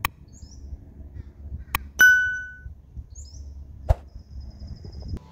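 Subscribe-button animation sound effects: a sharp click at the start, another click right before a bright bell ding about two seconds in that rings out for about half a second, and a third click about four seconds in. Birds chirp faintly twice in the background.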